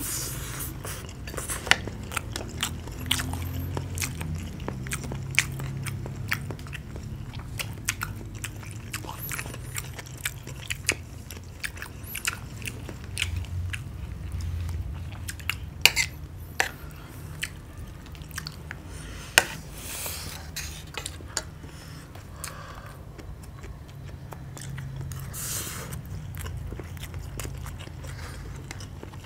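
Close-miked chewing of fried rice by two people eating, with wet mouth sounds and bites. Metal spoons click and scrape against ceramic plates throughout, a few of the clicks much louder.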